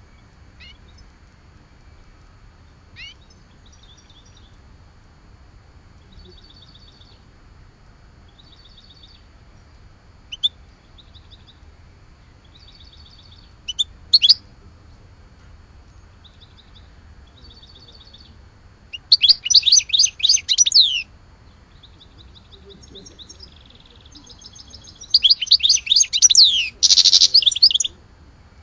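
Songbird singing: short, soft high trills repeated every second or two, with a couple of sharp single notes, then two loud runs of rapid high notes, one about two-thirds of the way in and one near the end.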